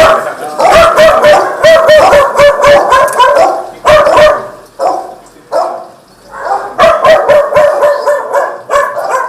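A dog barking over and over in quick runs of short barks, pausing briefly past the middle before starting again.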